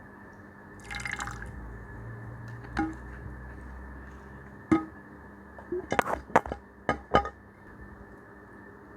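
Slime ingredients being handled in a container: a short liquid splash or pour about a second in, then scattered sharp taps and a quick run of clicks, like a utensil knocking the container, over a steady background hiss.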